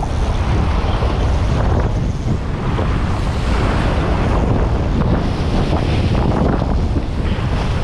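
Strong wind buffeting the microphone in a steady low rumble, with sea surf washing underneath.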